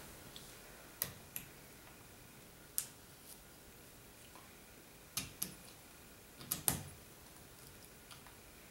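Faint, scattered metal clicks, about eight in all and loosely in pairs, as a steel snap ring held in snap ring pliers is spread and pushed down over the collar of a woodturning lathe scroll chuck.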